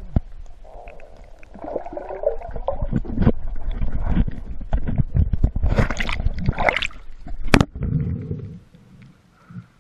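Water gurgling and sloshing around a GoPro camera, with irregular knocks and scrapes against its housing and one sharp click about three quarters of the way through.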